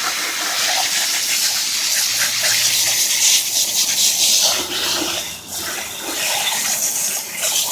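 Water spraying and splashing onto degreased engine parts to rinse the cleaner off: a loud, steady rush, mostly hiss, that briefly eases twice.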